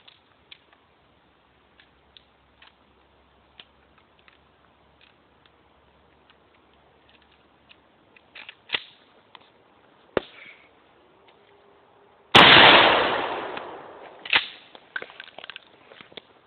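A single 12-gauge shotgun shot about twelve seconds in, loud and sudden, with a tail that fades over about a second and a half. A few faint clicks come before it, and a sharp knock follows about two seconds after the shot.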